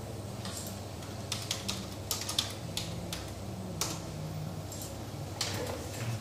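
Irregular clicks of typing on a computer keyboard, over a steady low room hum.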